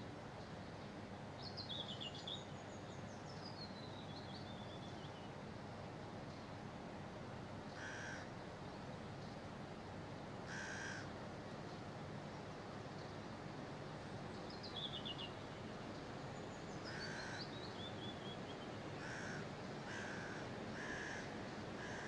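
Crows cawing: single harsh caws a few seconds apart, coming closer together near the end. A small songbird sings a descending trill twice, over a steady low background hiss.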